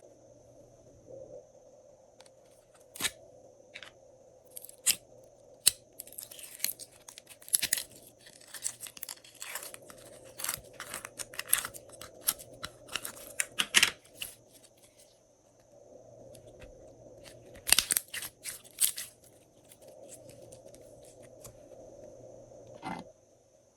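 Glossy slime being mixed and pressed by hand, giving irregular sticky clicks and crackling pops in clusters, over a faint steady hum.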